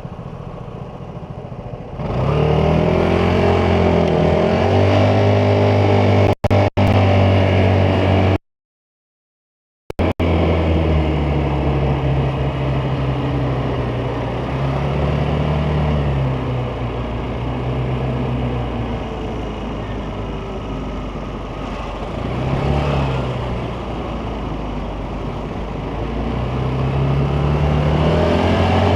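Vespa GTS 300 scooter's single-cylinder four-stroke engine, at low revs for the first two seconds, then pulling away with rising engine pitch and running on at changing speeds, easing off and picking up again several times and rising near the end. The audio cuts out twice very briefly, then drops out entirely for about a second and a half.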